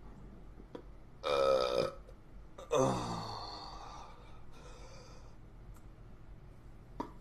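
A man belching twice. The first burp is short, about a second in, and the second, a little later, drops in pitch and trails off.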